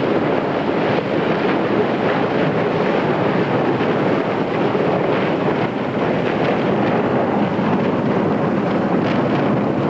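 First-year sea ice breaking and grinding along a container ship's steel hull as the ship pushes through it: a loud, continuous rushing noise with an irregular crackle, mixed with wind on the microphone.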